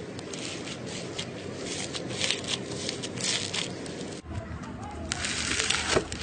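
Slime being squeezed and poked by hand, making irregular crackling, clicking squishes. About four seconds in the sound changes abruptly to a denser squish, and a sharper pop comes near the end.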